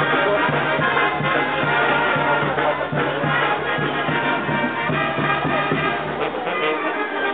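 A brass band playing, with trumpets and trombones holding sustained notes over a steady low bass line.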